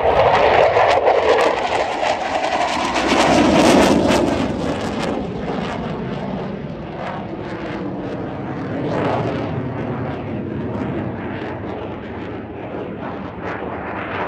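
Saab JAS 39 Gripen fighter jet's single engine roaring in a low display pass, with a crackle loudest in the first four seconds. It then eases to a steadier, lower roar as the jet climbs away overhead.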